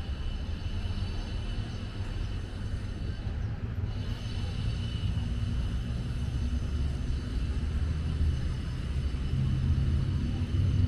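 Steady low outdoor rumble with a faint, steady high-pitched tone over it; the rumble grows a little louder near the end.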